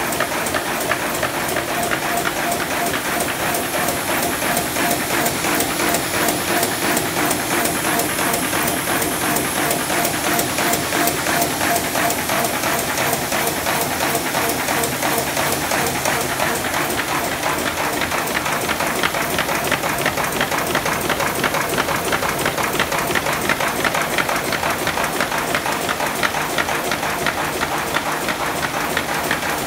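Horizon AFC-566AKT paper folding machine running, feeding and folding sheets with a rapid, steady mechanical clatter.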